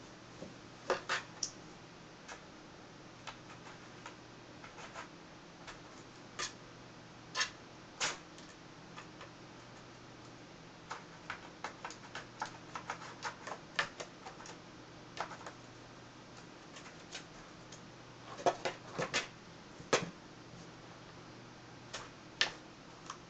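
Birman cats scratching and batting at a cardboard box: irregular sharp scratches and taps, some single and some in quick clusters.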